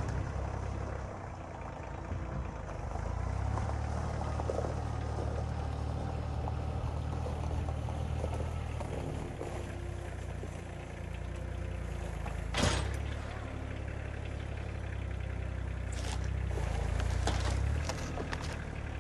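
Engine running at a steady speed, its low drone swelling and easing a few times, with one sharp knock about two-thirds of the way through and a few clicks near the end.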